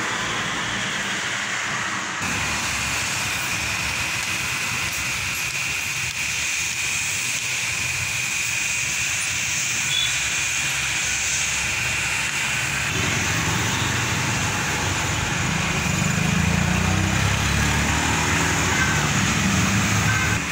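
Steady street traffic, with motor vehicles passing on the road. A deeper engine rumble builds louder over the last several seconds.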